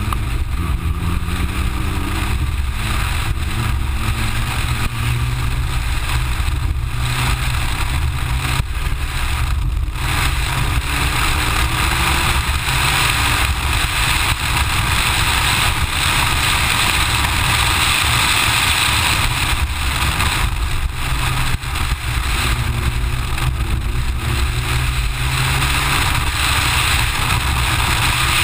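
Mitsubishi Lancer Evo IX rally car's turbocharged four-cylinder engine revving hard, its pitch climbing again and again as it accelerates, with heavy wind and road noise on a camera mounted on the car's side.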